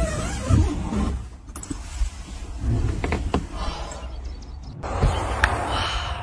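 Handling of a car rooftop tent's fabric cover as it is pulled open, with rustling and a few light clicks and knocks over a steady low rumble. The sound changes abruptly near the end.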